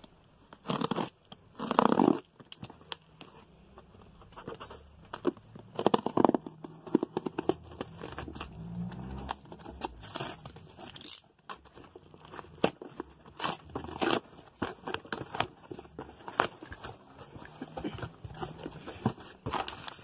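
Clear packing tape being cut and pulled off a cardboard shipping box and the box opened: irregular bursts of tearing, scraping and crinkling.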